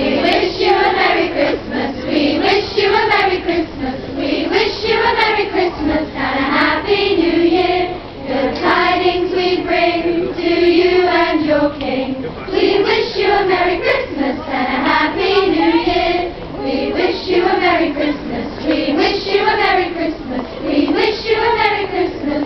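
A choir of girls singing a Christmas carol, one continuous melody line with brief breaks between phrases.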